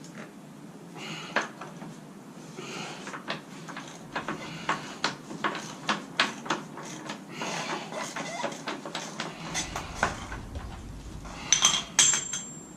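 Hand tools clinking and clicking against metal: a 36mm socket and wrench being worked on a motorcycle's rear axle nut. It is a series of sharp taps and clicks, with a few louder metallic clanks near the end, one ringing briefly.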